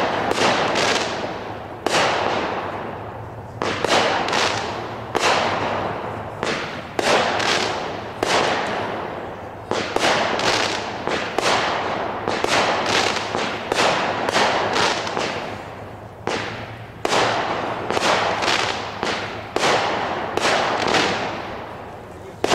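Walkin' Dead multi-shot consumer fireworks cake firing about twenty-five shots in a row, roughly one a second and sometimes two in quick succession. Each shot is a sharp bang with a fading tail.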